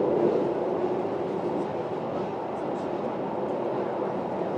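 Electric train running through a rail tunnel, heard from the driver's cab: a steady rushing rumble of wheels on rail, easing slightly in level about a second in.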